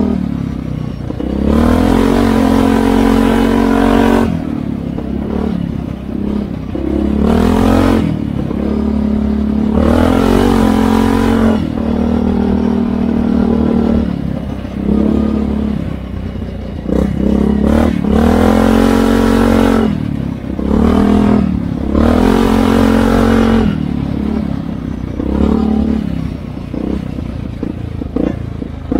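ATV engine revving up and down over and over as it is ridden: the throttle is opened in surges of a second or two every few seconds, and the engine drops back to a lower note between them.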